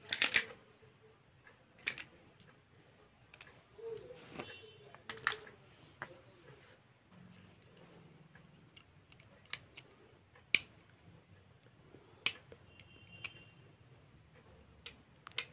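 Scattered small clicks and short scrapes: a blade scraping the coating off the terminals of a small 4 V sealed lead-acid battery, with the battery handled between strokes.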